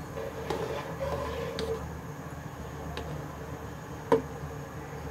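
Metal perforated spoon stirring rice in a boiling steel pot, clinking against the pot a few times, with the sharpest clink about four seconds in, over a steady low hum.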